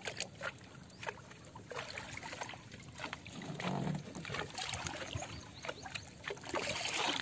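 Water lapping and splashing lightly around small outrigger fishing boats on calm sea, with scattered short clicks and knocks.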